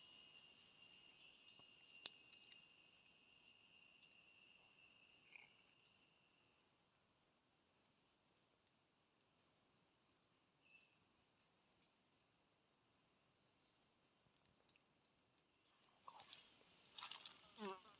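Insects chirping in the forest: quick repeated trains of high chirps over a steady high hum, with a single steady higher-pitched tone that fades out about six seconds in. Near the end a few louder, short sounds come in, some falling in pitch.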